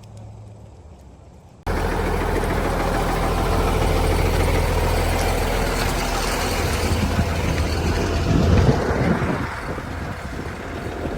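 A heavy vehicle's engine running loudly and steadily, cutting in suddenly about two seconds in after a quiet low hum.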